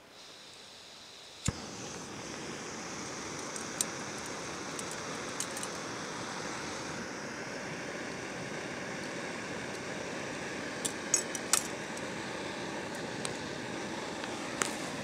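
Small camp stove lit with a click about a second and a half in, then burning with a steady hiss under a cooking pot. The metal pot and its wire bail clink a few times as it is set on the flame.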